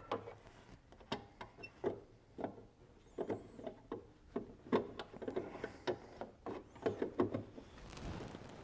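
Irregular small clicks, taps and scrapes of a new H7 headlamp bulb and its plastic holder being worked back into the headlamp housing by hand, plastic on plastic, a few knocks a second.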